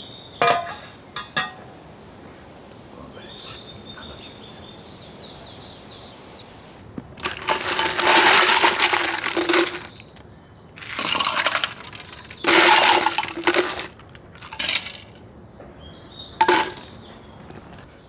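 Several loud bursts of rustling handling noise, the longest about seven to ten seconds in, after two sharp clicks near the start, with faint bird chirps in the quieter first seconds.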